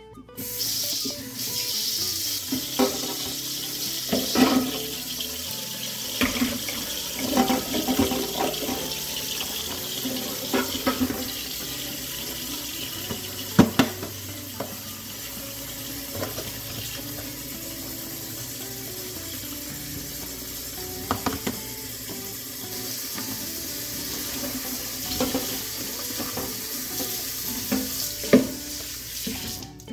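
Kitchen tap running into a stainless-steel bowl in the sink as cabbage leaves are washed, with scattered knocks and clatter from the bowl and a plastic tray. The water comes on about half a second in.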